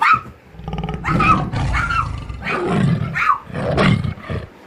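Growling play noises, about five rising-and-falling growls and yaps in a row, from a man mock-growling face to face with a Pomeranian puppy as they play-wrestle.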